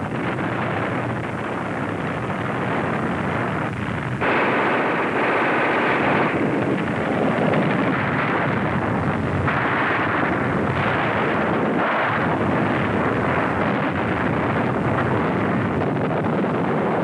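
Battle noise on an archival war soundtrack: a continuous roar of artillery fire and explosions, stepping louder about four seconds in and surging several times after.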